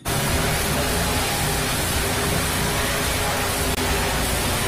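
Monster truck engine running hard in an arena, heard as a dense, steady wall of noise with music underneath.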